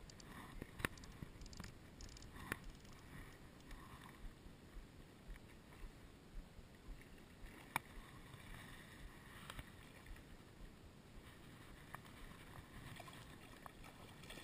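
Faint rustling and handling noise from a fly rod and line being worked by hand in streamside grass, with a few sharp clicks scattered through it.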